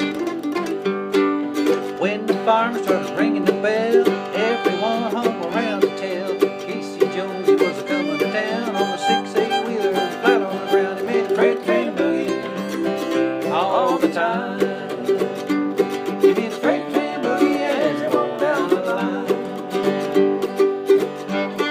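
Acoustic country boogie played live by a small string band: an acoustic guitar keeping a steady rhythm while other string instruments play quick lead lines, recorded on a cell phone.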